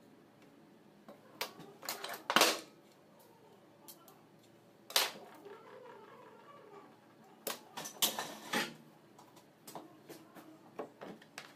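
Scattered clicks and taps of a soldering iron and hand tools against the metal terminals of an alternator's rectifier and regulator, with the loudest knocks about two, five and eight seconds in.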